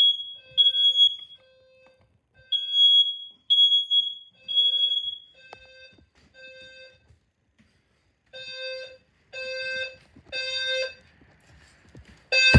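Home smoke alarms sounding, short piercing beeps repeating about once a second. About eight seconds in the beep changes to a lower, buzzier tone at the same pace.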